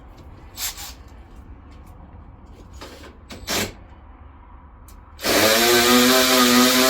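A handheld power tool running at a steady pitch for a few seconds, starting loudly near the end, likely driving fasteners during a car teardown. Before it, two brief handling noises.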